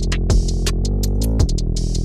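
Electronic music track made with a drum machine: held synth chords under quick hi-hat ticks, with two deep kick drum hits. The chord shifts briefly in the middle.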